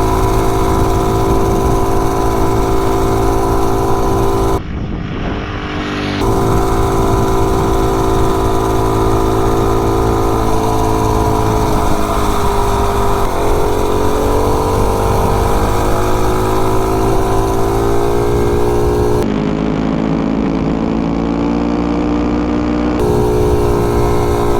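Modified 98cc three-horsepower single-cylinder mini bike engine, cammed with a billet flywheel and the governor removed, running flat out at top speed; its pitch dips about halfway through and climbs back up. It is topped out, running out of gear near its top speed rather than short of power.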